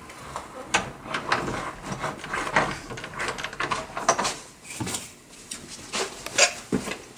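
Irregular light knocks, clicks and rubbing, the sound of people moving about and handling things.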